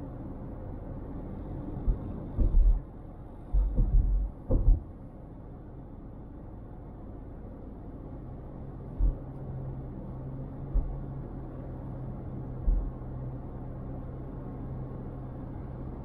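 Steady low rumble of a car driving, with a cluster of short low thumps from about two to five seconds in and single thumps later. A steady low hum joins about halfway through.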